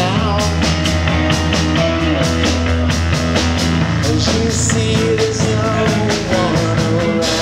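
Live rock band playing electric guitar, acoustic guitar, keyboard and drums over a steady drum beat.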